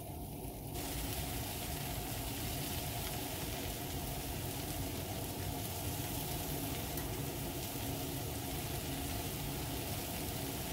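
Sliced onions and bell peppers frying on a flat-top griddle, a steady sizzle that grows louder less than a second in, with a low rumble underneath.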